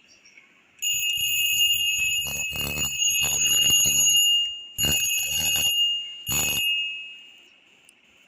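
Home-built alarm clock's alarm going off with a steady, high-pitched ring, with a rattle through the middle. It starts about a second in, breaks off twice, and stops near the end.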